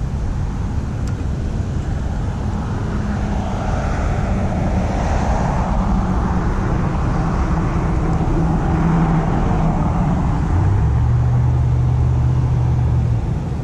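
Vehicle noise: a steady rushing sound that swells through the middle, with a low, steady engine hum joining about ten seconds in and stopping just before the end.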